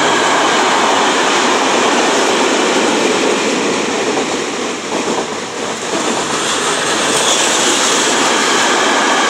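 A train passing at speed close by, hauled by a diesel locomotive and carrying the Pop ETR 104 unit: a loud, steady rush of wheels on rails and moving air. The noise dips briefly about halfway through, then builds again as the Pop goes by.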